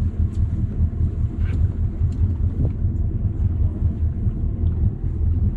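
Boat engine running steadily, a low rumbling hum, with wind buffeting the microphone.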